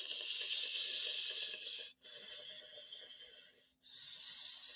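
Steady hiss of steam from an approaching steam locomotive, cutting out briefly about two seconds in and again almost two seconds later.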